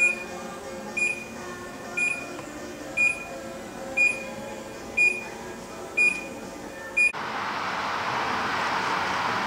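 An electronic beeper sounding a short, high beep about once a second, eight times, over a faint hum. Just after the seventh second the beeping cuts off abruptly and a steady rushing noise takes over.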